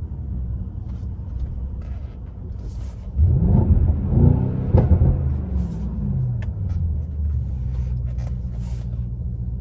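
Mercedes-AMG GLE 63 S twin-turbo V8 idling with a low rumble, then revved in neutral about three seconds in: a few quick blips, the pitch rising and falling each time, before it drops back to idle. Heard from inside the cabin.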